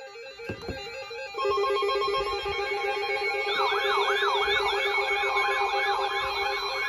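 Several weather radios sounding their alert alarms at once. Steady alarm tones get louder about a second and a half in. About three seconds in, a siren-style warble joins them, sweeping up and down about three times a second. The alarms signal an incoming tropical storm warning.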